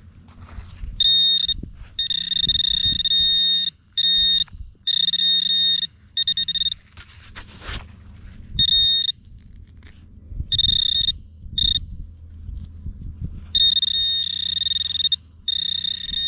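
Metal detector sounding its high, steady electronic target tone in repeated on-off bursts of half a second to a second and a half as it passes over buried metal. A single sharp click about eight seconds in, and low scraping and scuffing between the tones.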